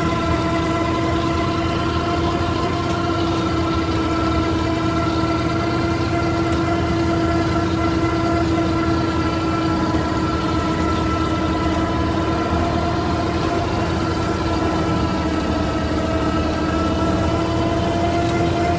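IMT 533 tractor's three-cylinder diesel running steadily under load while its PTO drives a Panex AGM flail mulcher shredding the orchard grass: a constant drone with a steady high whine over it.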